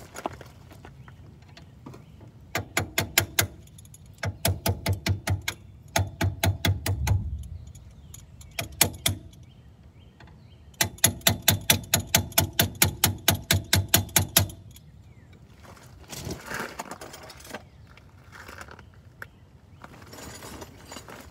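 Hand socket ratchet clicking in several runs of quick, even clicks, about five a second, the longest run a few seconds long in the middle, as the bolt holding the brake hose clamp to the front strut is undone. Softer metallic rattling and handling noise near the end.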